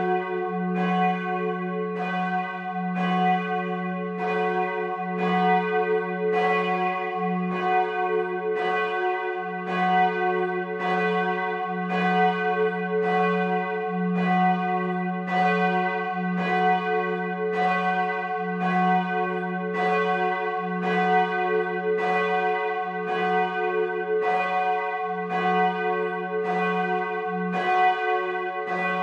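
Church bells of Bremen's St. Petri Cathedral swinging and ringing. A clapper stroke comes about once a second, over a steady, sustained hum of bell tones between strokes.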